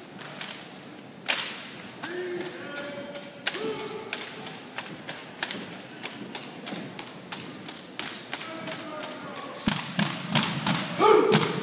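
Drill rifles being slapped by hand and their butts knocked on a hard floor during an armed drill routine: an irregular run of sharp knocks and thuds, with a few shouts in between and the loudest cluster near the end.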